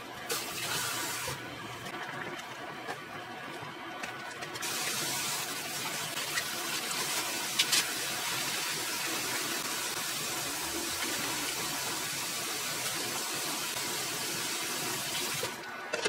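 Steady rushing hiss of water or liquid, starting about four and a half seconds in and running for about eleven seconds, with a shorter burst of the same sound near the start and one sharp clink about halfway through.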